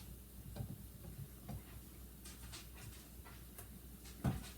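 Plastic pudding cups and other items being handled and set down on a fridge shelf: scattered faint clicks and taps, with one louder knock near the end.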